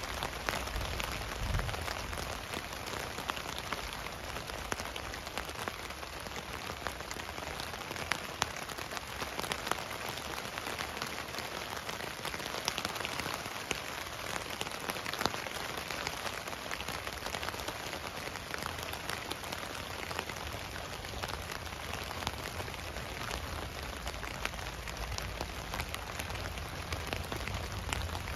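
Steady rain falling on a tent's fabric, heard from inside the tent: an even hiss dotted with many individual drop taps.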